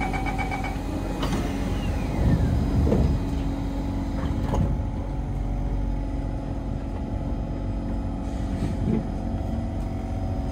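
Inside a Kawasaki C151 MRT train car as it pulls out of a station: door-closing beeps stop under a second in, then a few low clunks and jolts as the train starts moving. After that comes a steady rumble with the traction motors' hum.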